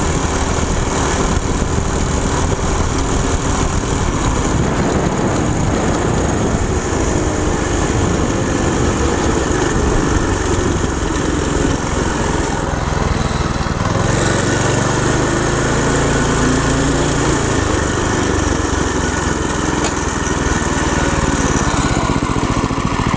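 Small single-cylinder go-kart engine, driving through a torque converter, runs steadily as the kart slows down from speed, with its pitch lower in the middle of the run.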